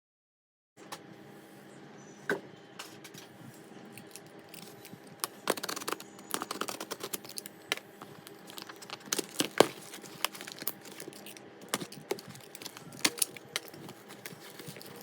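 Irregular sharp clicks and taps of a small plastic item and its packaging being handled, some clicks much louder than the rest.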